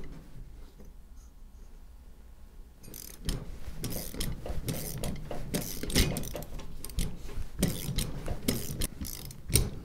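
Ratchet wrench clicking in quick, uneven strokes as it turns the nut on a threaded-rod puller, drawing a socket to press a sealed ball bearing's inner race onto a shaft. The clicking starts about three seconds in.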